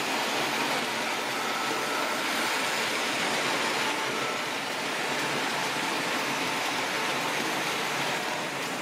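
Märklin 3153 HO-scale model of the DB class 120 electric locomotive running on analog power: a steady whir of its motor and gearing, with its wheels running on the metal track.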